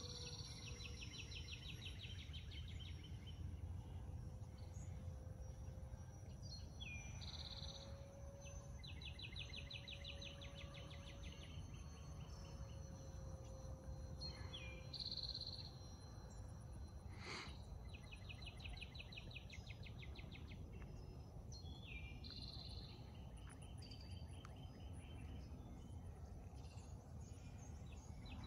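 A songbird singing the same short song over and over, every few seconds: one or two quick opening notes followed by a fast, even trill. A steady low outdoor rumble lies underneath, with a single sharp click partway through.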